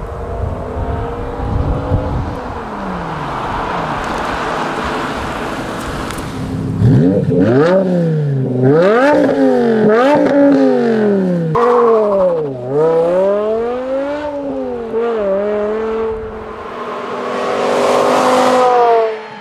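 BMW E60 M5's 5.0-litre V10 through an Eisenmann Race exhaust. The engine runs for several seconds, then gives a string of quick revs, each climbing and dropping back, about one a second. Near the end the car comes on at speed in a rising roar that cuts off suddenly.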